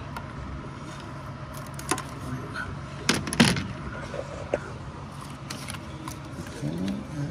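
Metal hand tools and socket clinking and knocking against engine parts while bolts are removed, a few sharp clinks with the loudest about three and a half seconds in, over a steady low hum. A brief voice sound near the end.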